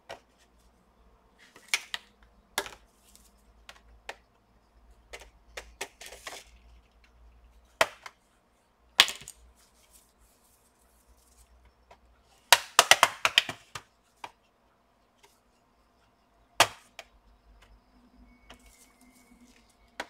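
Scattered sharp clicks and taps of hard plastic and small tools while a laptop is being worked on by hand. About halfway through comes a quick rattling run of clicks, the loudest part.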